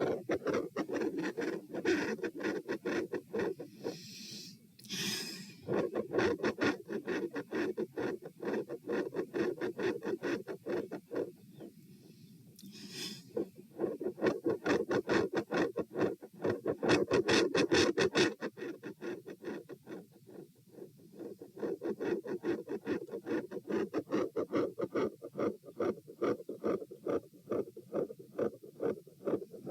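Heart sounds picked up through a stethoscope on the chest: a fast, loud heartbeat, each beat a pair of dull thumps repeating in an even rhythm. Twice, a brief rushing noise cuts across the beats, about four seconds in and again near thirteen seconds.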